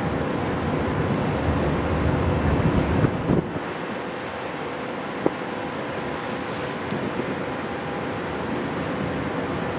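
Wind buffeting the microphone on a ferry's open deck, over the wash of the sea and a steady hum from the ship's machinery. The heavy wind rumble drops away about three and a half seconds in, and there is a single sharp tick about five seconds in.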